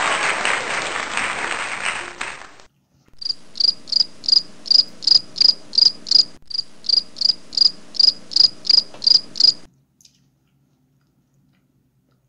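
Applause that stops about two and a half seconds in, followed by a cricket chirping steadily, about three high chirps a second, for around six seconds with a brief break halfway. The crickets are the stock 'awkward silence' sound effect.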